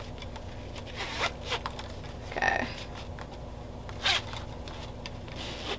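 A few short rasps, about a second, two and a half seconds and four seconds in, as a waist bag's strap is pulled through its adjuster to lengthen it.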